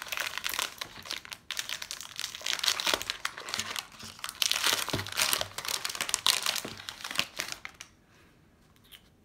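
Foil baseball card pack being torn open, its wrapper crinkling and crackling steadily until it stops about eight seconds in.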